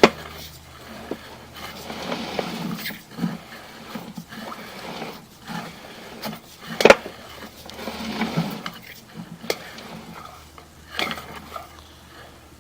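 Irregular knocks, clicks and scraping as a sewer inspection camera's push cable is fed and handled through a drain line, with one sharp knock about seven seconds in.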